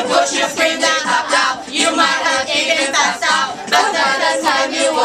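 A small group of people singing a song together, reading the words from paper.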